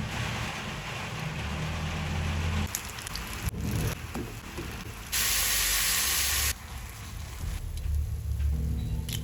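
Food sizzling in oil in a frying pan, a steady crackling hiss, with a much louder hiss for just over a second in the middle and a few light clicks.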